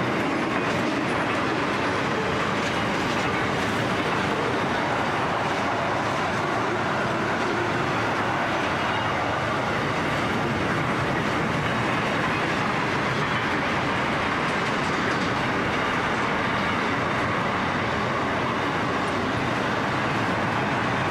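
Wagons of a long mixed freight train, steel wagons and container flat wagons, rolling past: a steady noise of steel wheels running on the rails, at an even level throughout.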